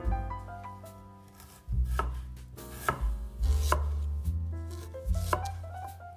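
A knife chopping on a cutting board: a few separate sharp strikes, roughly a second apart, over background music.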